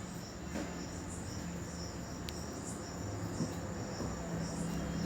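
Crickets chirping in a regular rhythm, a few high chirps a second, over a low steady hum.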